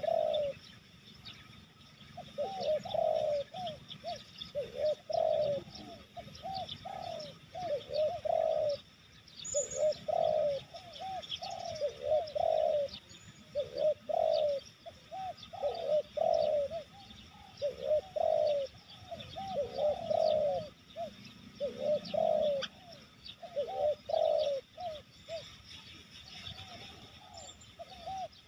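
Spotted doves (tekukur) cooing: short phrases of a few arched, rising-and-falling coo notes, repeated every second or two. Faint, high chirps of small birds are heard now and then.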